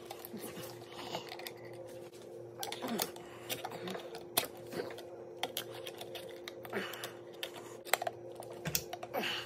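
Irregular light clicks and taps of wire strippers and stiff power-cord wires against the metal end plate of a garbage disposal, as the leads are worked into its wiring compartment.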